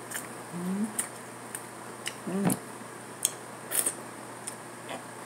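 Close-up mouth sounds of eating corn on the cob: scattered crisp clicks and smacks of biting and chewing the kernels, with two short hums of the voice.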